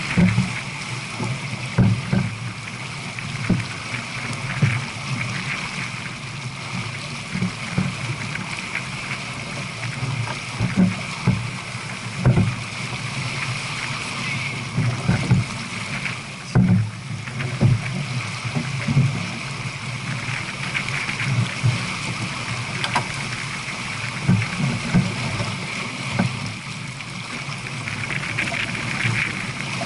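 Steady rush and splash of water along the hull of a J/24 sailboat running downwind at about 14 km/h, with wind buffeting the microphone in irregular low thumps.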